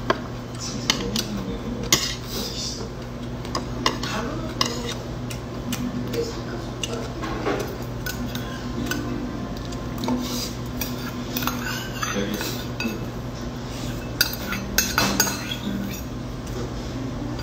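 Stainless-steel spoon and chopsticks clinking and scraping against a small stainless-steel bowl and an earthenware pot while soup is dished up and eaten. The clinks are scattered, with a sharp one about two seconds in and a quick cluster near the end, over a steady low hum.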